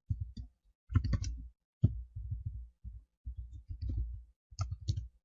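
Typing on a computer keyboard: an irregular run of dull key thumps with a few sharper clicks, the loudest about a second in and near the end.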